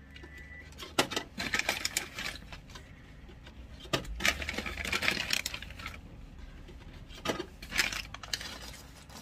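Small candies and candy boxes dropped into a plastic toy claw machine, clattering as they land, with a plastic candy bag crinkling in between. The sound comes as scattered sharp clicks and stretches of crackly rustle.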